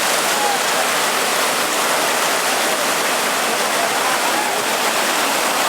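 Whitewater rapids of the Ocoee River rushing, a steady loud hiss of moving water.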